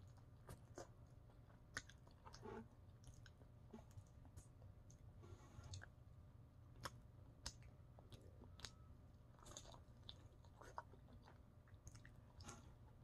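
Faint chewing and biting on chicken wings, with soft, scattered wet smacks and clicks from the mouth.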